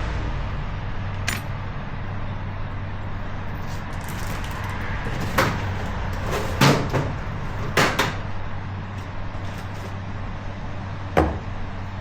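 Tools and parts being handled during a repair: five or six sharp knocks and clacks over a steady low hum, the loudest about halfway through, with two close together soon after.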